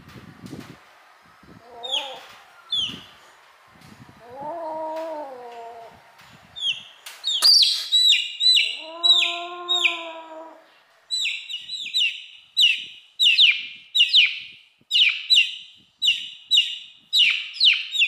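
A kitten meows: a couple of short calls about two seconds in, then two longer drawn-out meows near the middle. A chicken chick peeps with high, falling cheeps, sparse at first and then loud and steady at about two a second through the second half.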